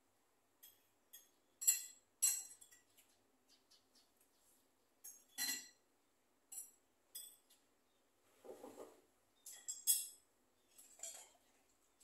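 Scaly-breasted munia nestlings giving short, thin, high-pitched begging squeaks, about a dozen scattered irregularly, with a brief lower rustle of the nest about two-thirds of the way in.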